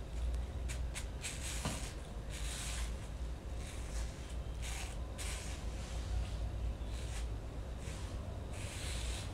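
Short rubbing or brushing strokes over hair, about one every second, each a brief hiss, over a steady low hum.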